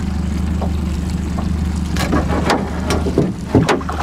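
70 hp outboard motor idling steadily, with several short sharp sounds in the second half, the loudest near the end.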